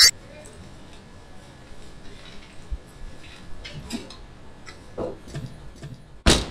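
Scattered light knocks and clinks over quiet background noise as things are handled at a hatchback's open boot. A single loud thud comes near the end.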